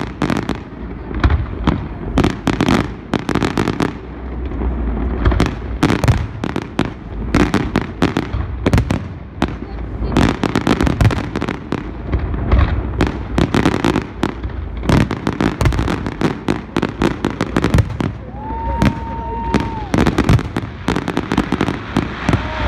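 Fireworks display shells bursting in rapid succession: a dense, continuous barrage of sharp bangs and crackling.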